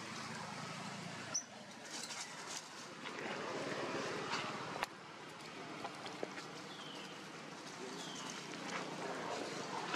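Outdoor ambience: a steady background noise, two sharp clicks in the first half, and a few short high falling chirps in the second half.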